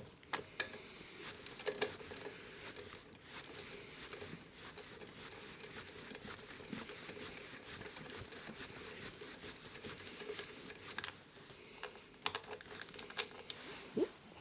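Irregular small clicks, taps and scrapes of hand tools and metal parts being handled while a lawnmower engine is dismantled, with a faint steady hum underneath.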